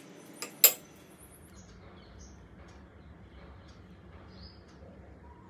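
A metal spoon knocks twice against a terracotta serving bowl about half a second in, the second knock much louder. After that, small birds chirp faintly and intermittently.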